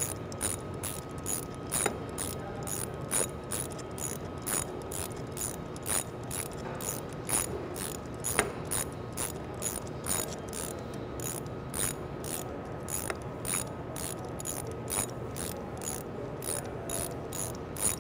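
3/8-inch drive ratchet with a spark plug socket clicking steadily as it is swung back and forth, about two or three clicks a second, tightening a spark plug back into a GM 2.2L Ecotec engine's cylinder head before the plug seats.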